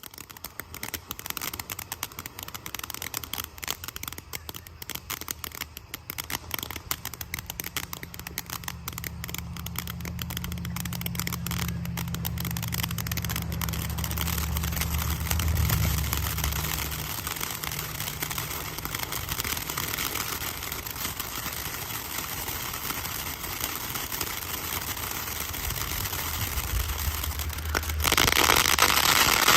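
Crackling fountain firework spraying a dense, continuous crackle that starts suddenly and builds, then jumps louder and thicker near the end. A low rumble runs underneath for several seconds in the middle.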